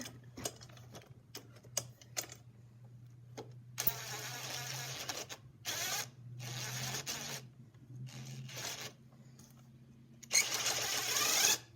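Cordless impact driver running in several bursts, hammering as it tightens the wheel bolts on a mechanic's creeper; the longest and loudest burst comes near the end. A steady low hum runs underneath.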